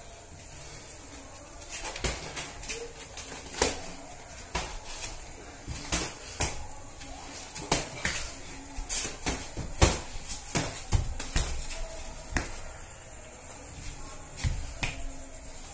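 Boxing gloves landing punches in an irregular run of sharp thuds and slaps, sometimes in quick clusters of two or three.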